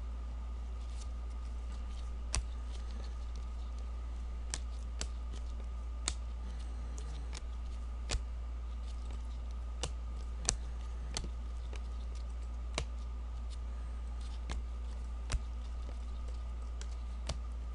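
Gloved hands flipping through a stack of O-Pee-Chee hockey trading cards: a light click or snap every second or two as each card comes off the stack, over a steady low hum.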